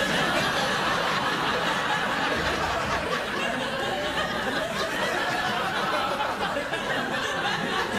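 Studio audience laughing and chuckling without a break, with no one on stage speaking.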